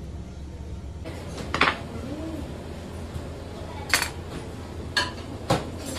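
Sharp clinks and knocks of a kitchen knife and utensils against a plastic cutting board while fish is handled. There are four hits; the first, about one and a half seconds in, is the loudest. A steady low hum runs underneath.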